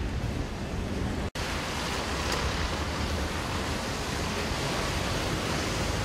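Storm wind rushing and buffeting the microphone, low and rumbling. About a second in the sound drops out for an instant and gives way to a steady, even hiss of heavy rain and wind.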